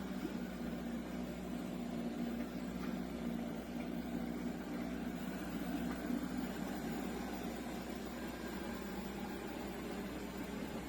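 Shark PowerDetect NeverTouch Pro robot vacuum running: a steady motor and fan hum with a faint low tone, the tone weakening a little about halfway through.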